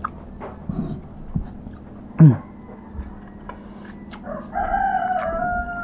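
Animal calls: a short, loud call that drops sharply in pitch about two seconds in, then a long drawn-out call near the end that sinks in pitch as it fades.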